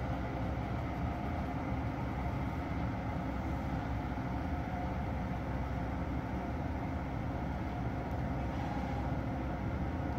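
Electric freight locomotive running slowly past on the station track, with a steady hum and low rumble.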